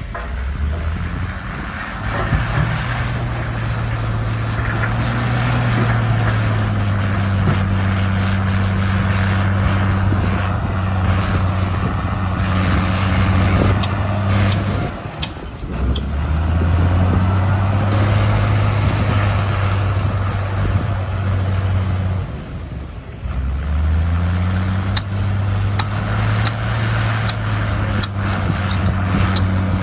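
Komatsu bulldozer's diesel engine working under load, its note rising and holding, then easing off twice, about halfway through and again three-quarters through, before pulling back up. Sharp clanks are scattered through it.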